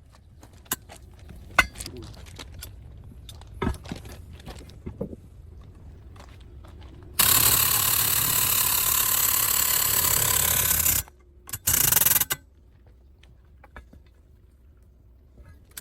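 Compressed air hissing from an air line: one loud blast of about four seconds, then two short blasts, after a few clanks and clinks of tools.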